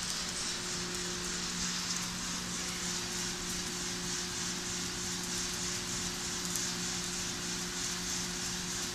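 Probat GG150 drum coffee roaster running mid-roast: a steady hiss with a steady low hum underneath from its burner, fans and drum drive.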